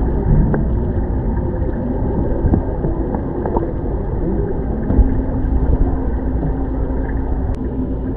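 Muffled rumble and gurgling of aquarium water heard through a camera held underwater in the tank, with a few soft knocks. A steady low hum comes in about halfway through.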